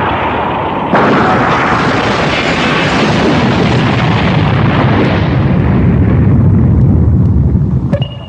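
Anime sound effect of a huge energy-blast explosion: a sudden louder burst about a second in, then a long low rumble whose high hiss slowly fades away, cutting off near the end.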